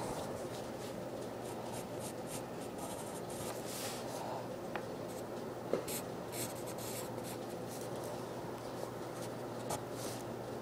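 Pen drawing on paper: short, irregular scratching strokes, with one sharper tap a little past halfway, over a faint steady low hum.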